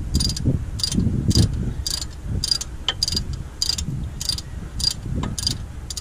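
Ratchet spanner being worked in short, even strokes, a burst of pawl clicks about twice a second, over low knocking from hands and tool.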